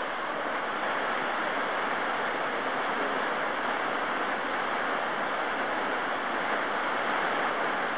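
Steady rush of whitewater from a creek pouring over a waterfall and through rapids.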